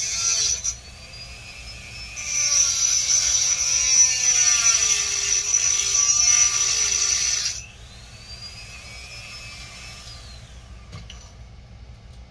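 Small high-speed rotary tool running with a high whine and a grinding hiss, its pitch dipping and recovering as it works against a piece of coral. It breaks off about half a second in, starts again about two seconds in, and cuts off about seven and a half seconds in. A fainter whine then rises and falls away, and there is a single click near the end.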